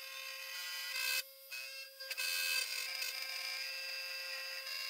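TwoTrees TTC450 CNC router's spindle running with a steady whine while a 3.2 mm milling bit cuts black perspex, with a hissing, scratchy cutting noise over it. The sound dips out briefly a little over a second in and again around two seconds.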